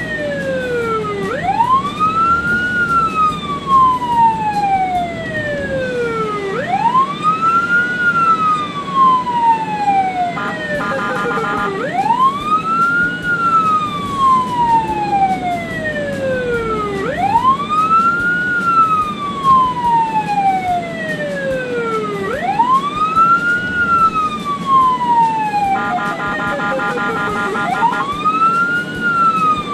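Ambulance siren wailing, each cycle a quick rise followed by a slow fall, repeating about every five seconds over traffic noise. Twice, about ten seconds in and near the end, a steady pitched tone with overtones sounds for a second or two alongside it.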